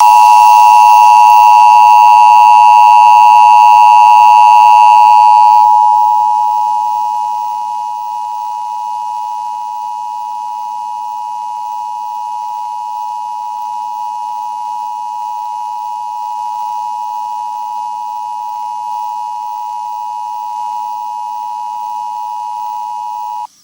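Emergency Broadcast System attention signal: two steady tones sounded together as one harsh, buzzing chord. It is loud and distorted for about the first five seconds, then drops in level and continues cleaner until it cuts off abruptly near the end.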